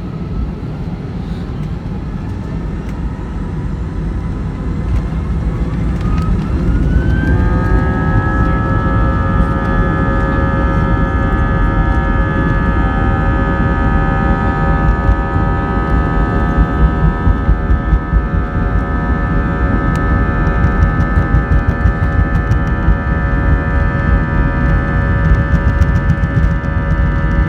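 Airbus A320 turbofan engines heard from inside the cabin, spooling up to takeoff thrust: a whine rises in pitch for a few seconds, then holds as a steady multi-tone whine over a deep rumble that grows louder.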